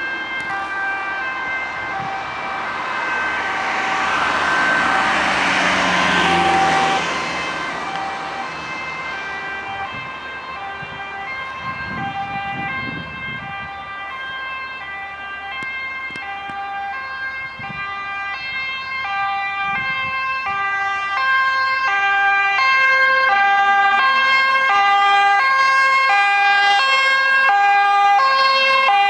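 Dutch ambulance two-tone siren alternating steadily between a high and a low pitch, signalling an urgent A1 emergency run, growing louder as the vehicle approaches. About four to seven seconds in, a swell of road noise from a passing car.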